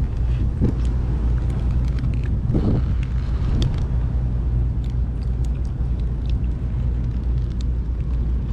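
A steady low rumble, with light crinkling and clicking from a paper burger wrapper being handled.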